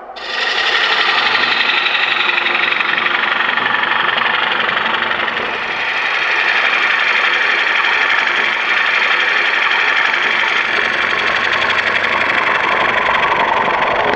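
Bowl gouge cutting into the inside of a wooden bowl spinning on a lathe, hollowing it out, a steady loud rasping hiss of the cut. It starts abruptly, dips briefly partway through, and stops sharply near the end as the tool comes off the wood.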